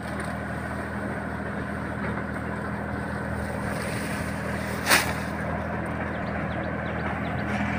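Tractor engine running steadily at an even speed, with one sharp click about five seconds in.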